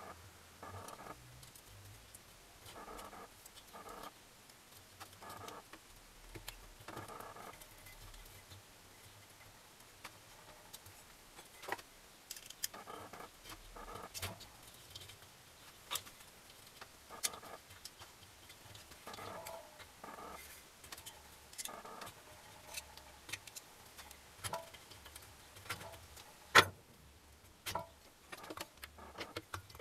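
Soft scraping and metal clinks and knocks as a finned cylinder barrel is handled and set against the crankcase of an Adler MB250 two-stroke twin engine, with one louder knock late on.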